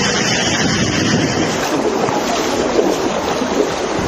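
Floodwater on a street: a steady, loud rush of moving water. About two seconds in it turns lower and more uneven, a sloshing of water.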